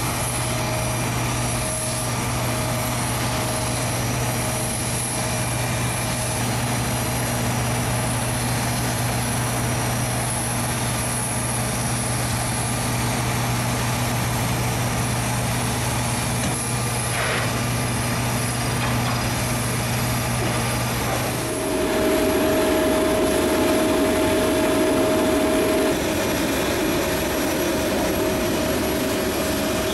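Steady mechanical hum and rush of an Airbus A350XWB airliner on the ground. About 22 seconds in the tone changes: a deeper hum drops away, and a louder, higher rushing sound with a steady whine takes over.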